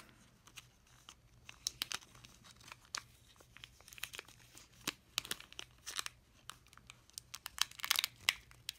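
Close-up handling noise: irregular crinkling, rustling and small sharp clicks, as of plastic, wires and small parts being worked by hand, busiest and loudest near the end.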